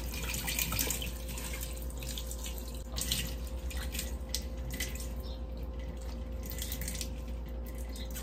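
Water running from a tap and splashing irregularly into a sink as long hair is rinsed under it, washing out a hair mask.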